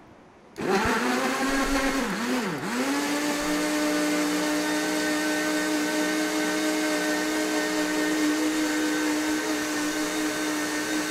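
Electric countertop blender switched on about half a second in, its motor whining at speed as it blends milk with scoops of ice cream. The pitch dips twice around two seconds in as the thick mix catches, then holds steady.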